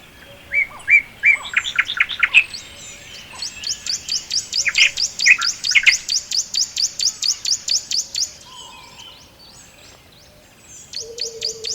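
Several songbirds calling in a forest, with short chirps early on and then a long rapid trill of high, evenly spaced notes, about seven a second, lasting several seconds. After a brief lull, a low steady tone that falls slightly comes in near the end as another rapid high trill starts.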